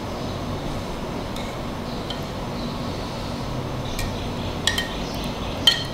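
About half a dozen light, scattered clinks of a utensil against a glass dish, with a short ring, the loudest near the end, over a steady low background noise.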